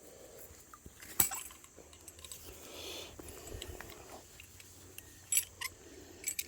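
A few sharp clicks and small metal clinks, as of a retrieved fishing magnet and the metal bits stuck to it being handled. The loudest comes about a second in, with a small cluster near the end.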